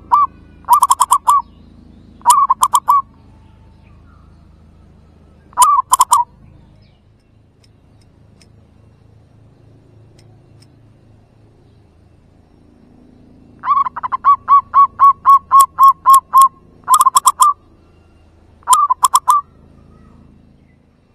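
Zebra dove (merbuk) cooing: a few short groups of rapid staccato notes, then about 14 s in a longer run of about a dozen notes at roughly four a second, followed by two more short groups. The notes are loud enough to distort the recording.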